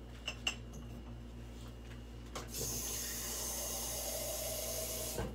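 Kitchen tap running water into a glass, starting about two and a half seconds in and shutting off just before the end, after a few faint clicks.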